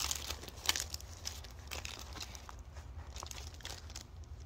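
Clear plastic cover film on a sticky diamond painting canvas crinkling and crackling as it is handled. The crackles are busiest in the first second and sparser after, over a steady low hum.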